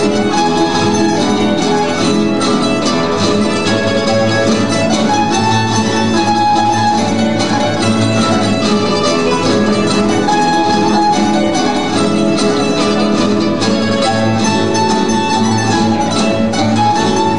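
A rondalla of guitars and other plucked string instruments playing a jota, a lively steady strummed and plucked accompaniment with a melody line over it.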